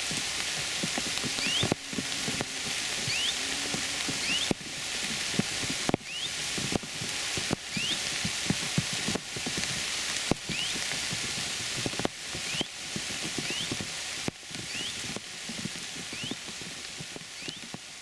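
Heavy rain falling steadily, with close drops striking in sharp clicks, and a small bird giving a short rising call again and again, about once every second or so. The rain fades toward the end.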